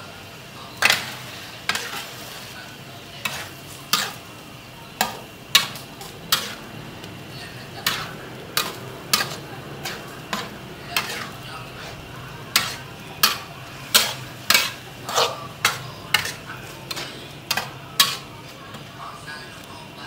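Metal spatula scraping and knocking against a steel wok in irregular strokes, about one or two a second, as shrimp and vegetables are stir-fried. A steady low sizzle of frying runs underneath.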